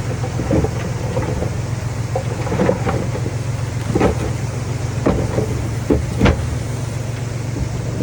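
Heavy earthmoving machinery running: a steady low engine hum, with several short clanks and knocks scattered through it, the two loudest close together a little after six seconds in.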